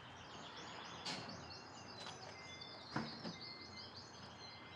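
Many small birds chirping rapidly and continuously, with a couple of faint knocks about a second in and again near three seconds.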